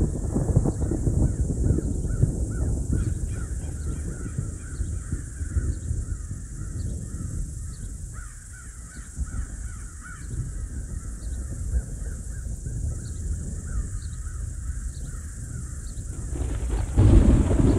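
Crows cawing over and over above a low, steady rumble of distant thunder. Near the end the calls stop and a louder rumble of thunder rolls in.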